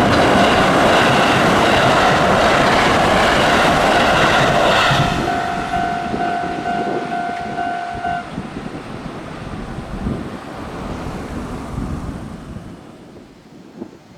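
A Sanyo Electric Railway electric train passing over a level crossing, loud for the first five seconds or so and then fading away. The crossing's warning bell rings steadily over it and stops about eight seconds in, as the crossing clears.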